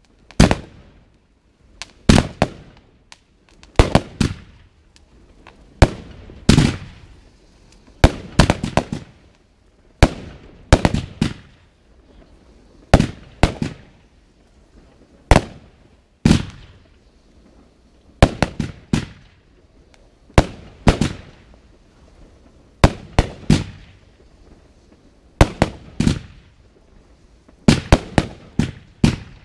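Aerial fireworks going off: a rapid series of sharp bangs, often two or three close together, with short gaps between, each bang echoing briefly.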